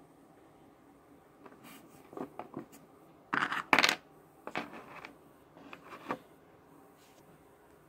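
Small plastic toy figures and props being handled and set down on a wooden tabletop: a scattering of light clicks and taps, the loudest pair about three and a half seconds in.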